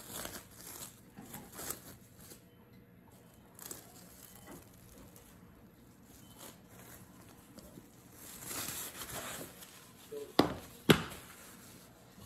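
Plastic wrap being peeled off and crinkling faintly, with a soft rustle about eight seconds in, then two sharp knocks about half a second apart near the end.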